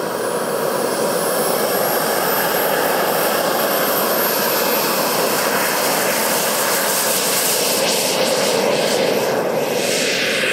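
Radio-controlled scale-model Panther jet's engine at take-off power on its ground run: a steady loud rush with a high whine that climbs in pitch over the first few seconds, then holds. Near the end the sound shifts as the jet lifts off and moves past.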